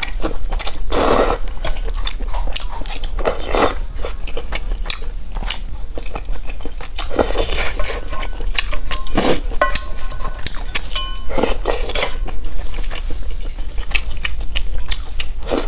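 Close-miked eating: biting and chewing with wet mouth clicks and smacks. A few short clinks of utensils against a dish or bowl come through, around the middle and again a little later.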